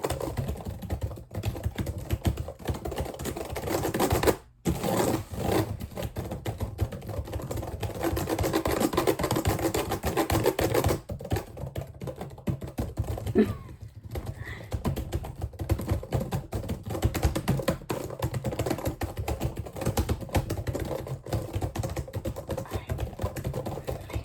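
Rapid, continuous ASMR clicking and tapping, dense fast clicks with a brief pause about four and a half seconds in.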